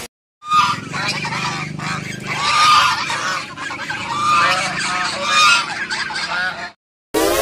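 A flock of white domestic geese honking, many calls overlapping one another. The honking starts just after a brief silence and cuts off suddenly shortly before the end.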